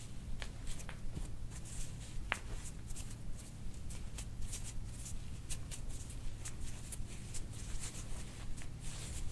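Hands rubbing and pressing over a patient's back and clothing during soft-tissue work: irregular soft rustling and brushing, over a low steady room hum.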